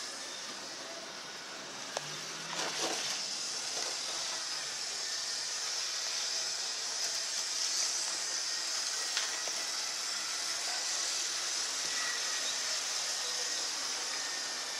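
HO-scale model train running on its track: a steady hiss, with a sharp click about two seconds in.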